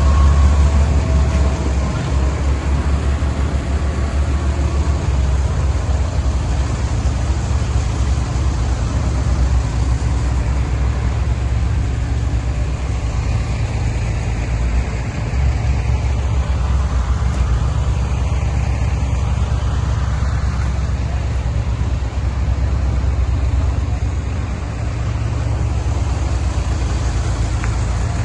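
Deutz diesel engine of a portable air compressor running steadily, with a heavy, even low hum throughout.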